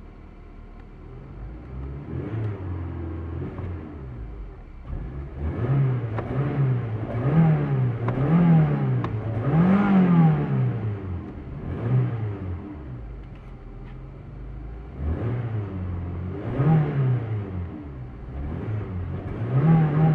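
Daihatsu Sigra (Toyota Calya) petrol engine idling and being revved in repeated quick blips, the pitch rising and falling about once a second, with steadier idle stretches in between.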